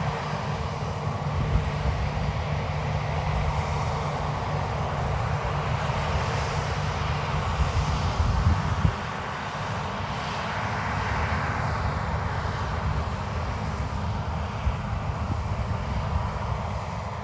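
Large diesel farm machinery running steadily under load, a continuous engine drone with a broad rushing noise over it, swelling and easing a few times.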